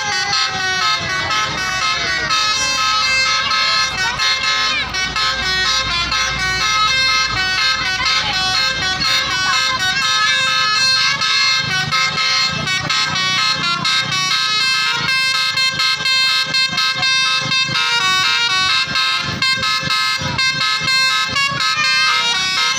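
Tour bus telolet horn, a multi-trumpet musical air horn, playing a fast tune of rapidly changing tones over and over.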